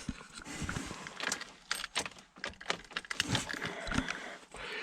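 A key ring jangling and clicking as the key is worked in a 2008 Ford Escape's ignition lock cylinder in short irregular rattles. The key will not turn back or come out, the sign of a failed ignition lock cylinder.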